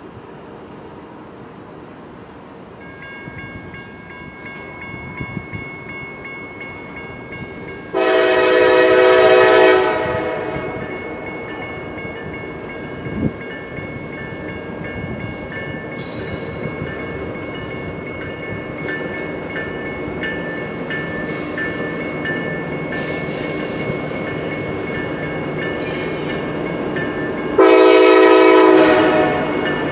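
Norfolk Southern diesel freight locomotive approaching a grade crossing, its air horn sounding two long blasts of about two seconds each, one about a third of the way in and one near the end, over a train rumble that grows louder. A crossing bell rings steadily from about three seconds in.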